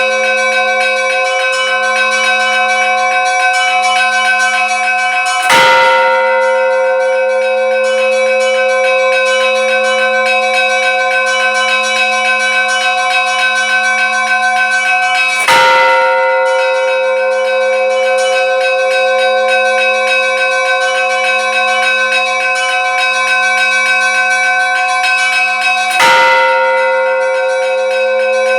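A bell struck three times, about ten seconds apart. Each stroke rings on into a steady, many-toned ringing that carries through between the strokes.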